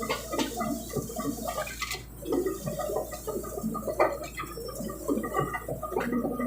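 Excavator at work clearing land, pressing brush and wood into the ground: an uneven, churning noise that never stops.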